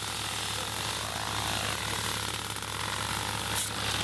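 Steady hum of an engine-driven compressor running the pneumatic olive-harvesting rakes, with one sharp click about three and a half seconds in.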